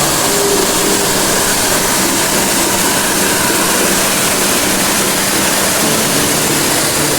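Barshangarh waterfall: falling water making a loud, steady rush.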